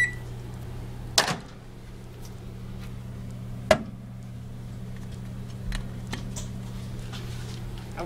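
Microwave oven door latch clicking open: two sharp clicks, about a second in and again near four seconds in, over a steady low hum.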